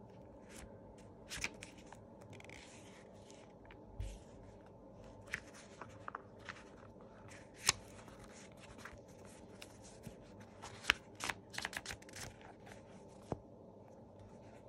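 Old paper pages of a miniature 1879 hymn book being leafed through and handled: soft papery rustles with scattered sharp clicks and a few louder snaps, over a faint steady hum.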